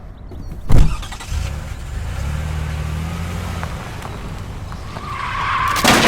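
A car: a thump about a second in, then the engine running steadily, then a tyre screech building near the end that ends in a loud crash.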